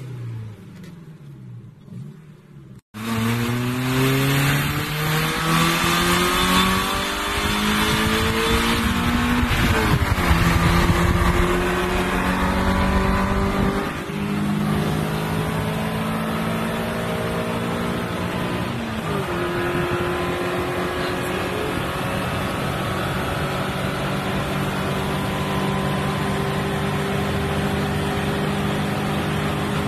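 Honda Civic 1.4 four-cylinder engine under hard acceleration. After a few seconds of low, even running there is a sudden cut. The revs then climb steadily, drop at an upshift about ten seconds in, and rise again. A second upshift comes near two-thirds of the way through, after which the engine holds steady high revs at speed.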